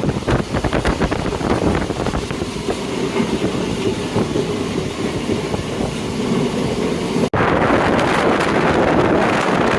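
Passenger express train running on the track, heard from aboard, with the coach wheels clattering over the rail joints. About seven seconds in it cuts abruptly to a louder, steady rush of train and wind noise.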